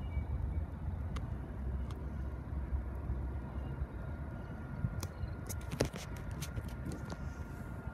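Low, steady rumble of a train approaching from a distance, with a cluster of sharp clicks about five to seven seconds in and a faint, steady high tone that starts just after them.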